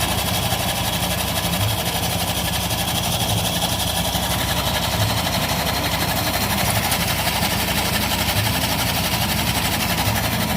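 Automatic scooter's engine and CVT running steadily with a fast, rough rattle; the owner puts this roughness down to a dry, dirty V-belt.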